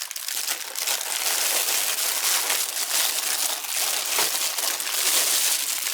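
Plastic packaging crinkling and rustling continuously as it is handled.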